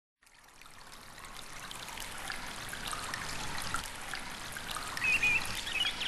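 A steady rushing noise like a trickling stream fades in and grows louder, with a few short high chirps near the end.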